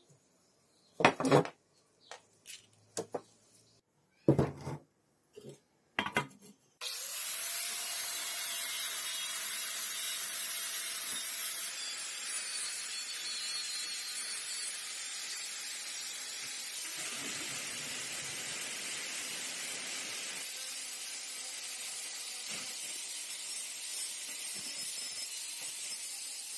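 A few sharp knocks and taps on a workpiece. About seven seconds in, a workshop tool starts with a brief rising whine and runs on as a steady, high hiss.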